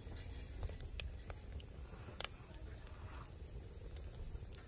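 Wood fire crackling in a stainless steel fire pit: scattered sharp pops and snaps, roughly one every second, over a low rumble.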